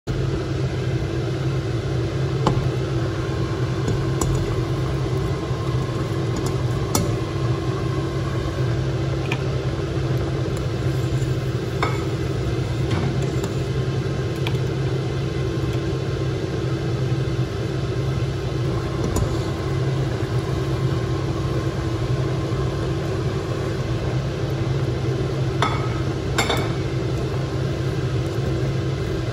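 Steel pot of rice porridge boiling over high heat, heard as a steady low rumble and hum. A metal ladle clinks against the pot a few times, twice near the end as greens are stirred in.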